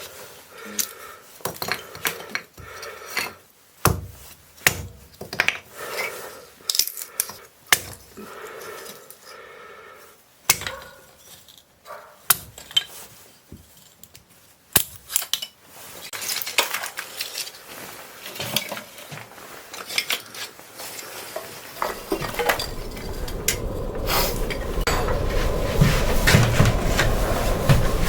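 Dishes and metal utensils clinking and knocking, one sharp strike after another. Toward the end a steady rushing hiss with a low rumble builds up.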